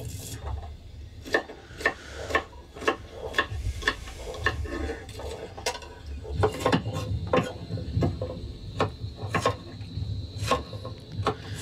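Knives chopping okra: a run of sharp, irregular taps, about two a second. A faint steady high tone comes in about halfway through.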